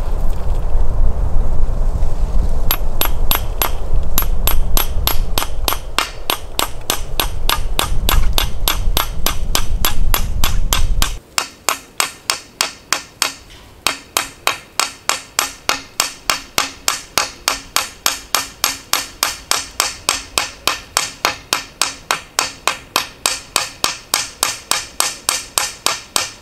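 Small hammer tapping copper rivets through an antler bow piece against a stone anvil, peening them over in a steady run of light metallic strikes, about three a second, with one short pause. A heavy low rumble lies under the first ten seconds or so and stops abruptly.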